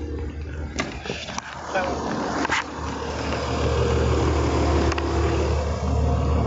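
A few sharp clicks and knocks as items are handled inside a car, then a steady low rumble of road and vehicle noise that grows louder from about halfway through.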